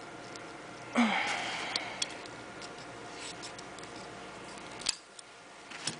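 Metal cutters working on an arrow shaft that pierces a kitten's head, giving three sharp clicks, the sharpest just before the end. About a second in, a short loud sound like a low voice falls in pitch and fades.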